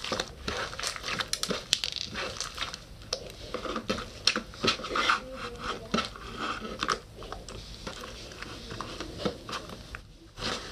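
Slime being squished and worked by hand, giving a dense, irregular run of sticky pops, clicks and crackles that thins out near the end.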